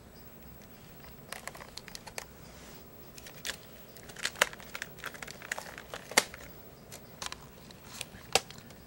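Handling noise: a series of irregular sharp clicks and light crinkling, like plastic being handled. The clicks come every half second or so and are loudest near the middle and the end.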